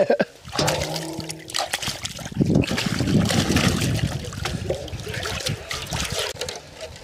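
Water pouring and splashing, loudest around the middle.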